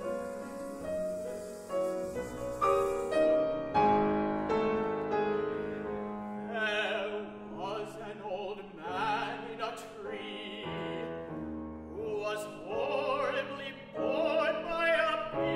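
Grand piano playing alone, then about six seconds in a classically trained male voice enters with vibrato, singing an art song over the piano accompaniment.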